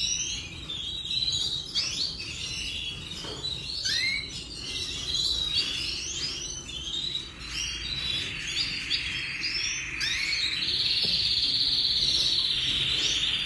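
Many small birds chirping together: overlapping short chirps and rising call notes, thickening into dense, continuous chatter near the end.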